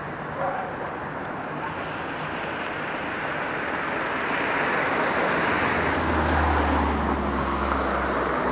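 Street traffic noise from the town below: the rush of a vehicle swells through the middle, and a low engine hum joins in for the last couple of seconds.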